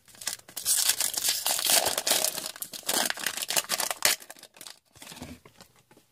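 A hockey card pack's foil wrapper being torn open and crinkled in the hands for about four seconds, then fainter rustling as the cards are handled.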